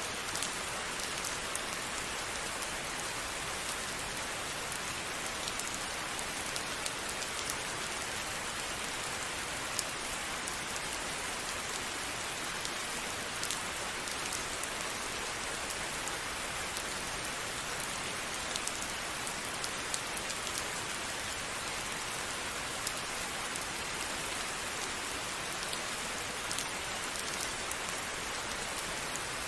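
Steady rain falling, an even hiss with many small scattered drop ticks on a surface.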